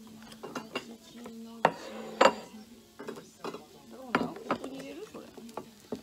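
Ice cubes clinking and glassware knocking as a tall glass of whisky and pineapple juice on ice is mixed and stirred: a series of sharp clinks at uneven intervals. A low steady hum runs underneath.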